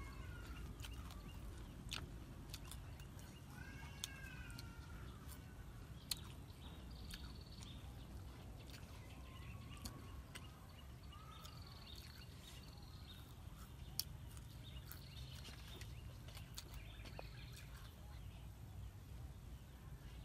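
Outdoor rural ambience: a steady low rumble, with several short rising-and-falling animal calls, a few high bird chirps, and scattered sharp clicks.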